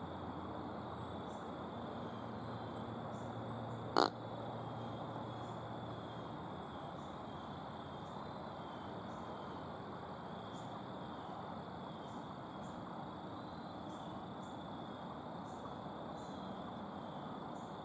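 Quiet woodland ambience: a steady faint hiss with a high, even insect-like drone, and one sharp click about four seconds in.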